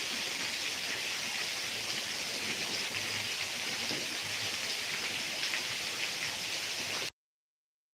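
Heavy rain falling steadily, a dense even hiss of drops on surfaces. The sound cuts off abruptly to dead silence about seven seconds in.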